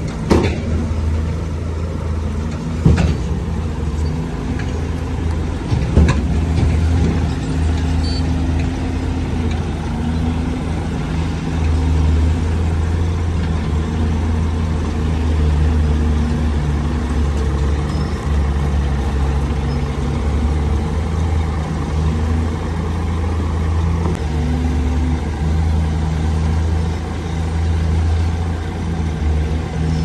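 Heavy diesel engine of earthmoving machinery running steadily with a deep hum, its note swelling and easing, with a few sharp knocks in the first six seconds.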